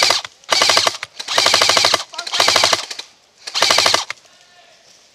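Airsoft gun firing five short full-auto bursts in quick succession over about four seconds, each a rapid, even rattle of shots, then stopping.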